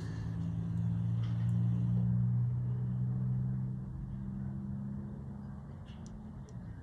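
A low, steady motor hum that swells over the first couple of seconds and then fades away, with a few faint clicks.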